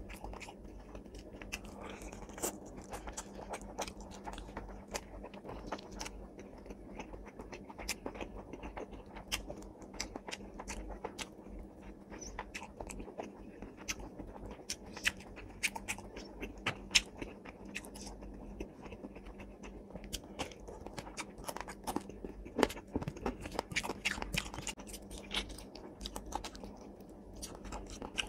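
Close-miked chewing and mouth noises of someone eating rice and fish curry by hand: many small wet clicks and smacks at an irregular pace, over a faint steady hum.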